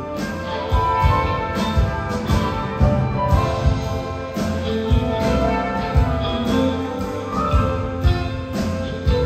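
Rock band and symphony orchestra playing an instrumental passage live: sustained orchestral chords over drum hits.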